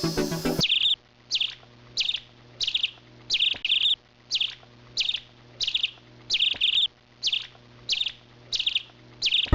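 A small bird chirping over and over: short, sharp chirps about one and a half times a second, some coming in quick pairs, over a faint steady hum. A moment of music is heard before the chirping starts.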